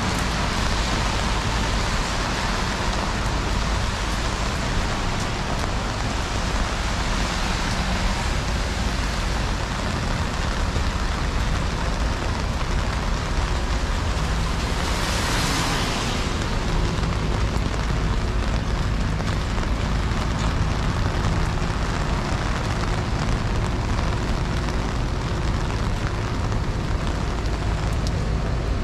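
Steady rain falling on a city street, with a low rumble underneath and a brief louder hiss about halfway through.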